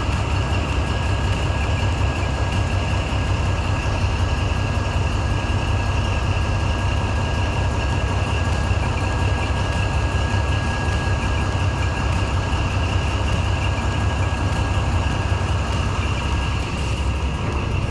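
Boat's diesel engine running steadily underway: a constant low rumble with a faint steady whine above it.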